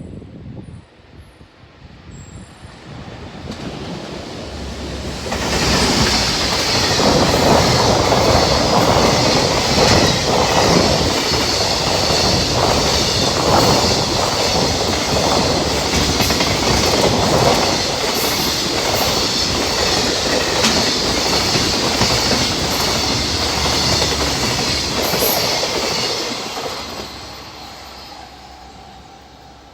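Freight train hauled by a JR Freight EF210 electric locomotive passing: it builds up, then a long run of wagon wheels clattering over rail joints, and fades away near the end.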